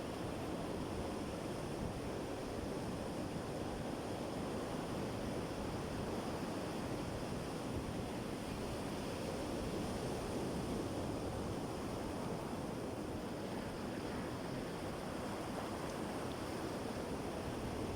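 Sea surf washing steadily onto the shore, a continuous rushing noise that swells a little about halfway through.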